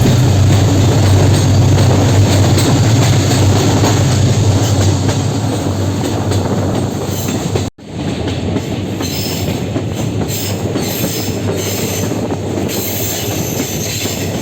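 Passenger train running on the rails, a steady rumble of wheels and carriages. It cuts out for a split second about halfway through, then carries on a little quieter.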